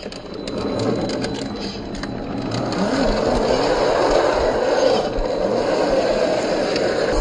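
1/10-scale RC rock crawler's brushed 540-size 35-turn motor whirring through its gearbox as it crawls over rocks, getting louder about a second in. Small clicks and scrapes of tyres and chassis on stone come in the first second or so.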